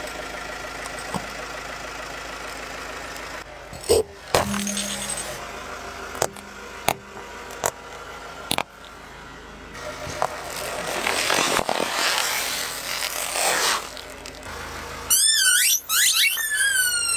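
A car tyre crushing objects one after another. First a loud crack as a glass soda bottle gives way, then a series of sharp balloon pops about a second apart, then a stretch of rushing hiss. Near the end a rubber squeaky toy lets out squeals that fall in pitch as the tyre squashes it.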